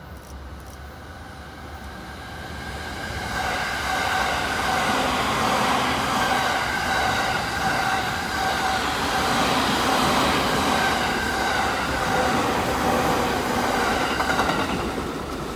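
Yokosuka Line electric commuter train passing through at speed without stopping. The rumble of its wheels on the rails grows louder over the first few seconds as it approaches, then stays loud and steady as the long train goes by, with a steady whine running through it.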